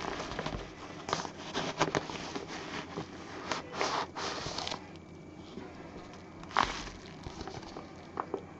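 A parcel and its packing being handled: irregular rustling with sharp clicks and knocks, busiest in the first half, then a quieter stretch with one sharp click.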